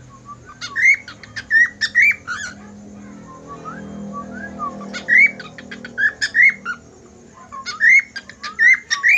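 Cockatiel whistling its song in three bursts of quick notes that swoop up and down in pitch, each about two seconds long, with short pauses between.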